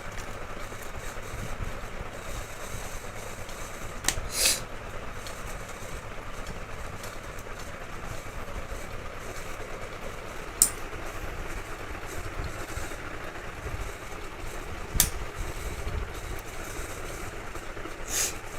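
A handful of sharp clicks and knocks, spread a few seconds apart, over a steady low background rumble. They fit computer parts being handled and fitted during a PC assembly.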